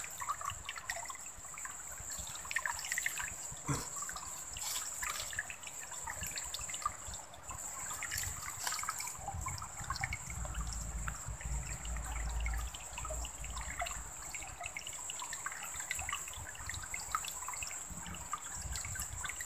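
Shallow stream trickling and babbling over tree roots and stones, with a steady high-pitched tone running above it.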